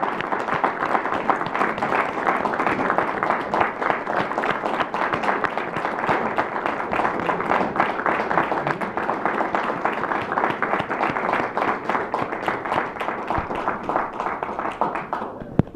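Audience applauding with dense, steady clapping that dies away near the end, followed by a single sharp thump.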